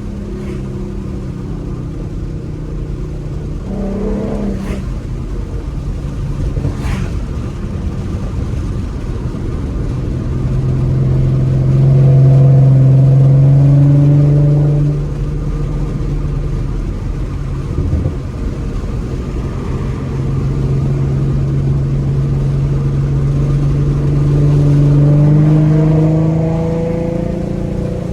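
2014 Ford Mustang's 3.7-litre V6, with a Roush axle-back exhaust and BBK shorty headers, running as the car is driven. The exhaust note swells under throttle twice, around the middle and again near the end. The second time the pitch climbs slowly before it eases off.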